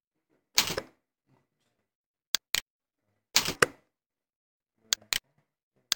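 Computer mouse and keyboard clicks: a few sharp clicks, several in quick pairs, and two short, louder bursts spread over several seconds.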